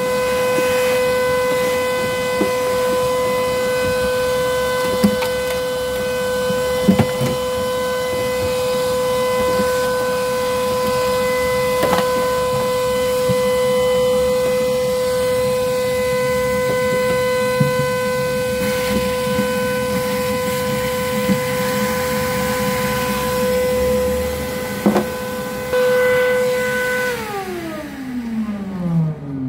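A motor runs at a steady, high, whining pitch, then winds down over about two seconds near the end as it is switched off. A few sharp clicks sound over it as plastic wiring connectors are handled.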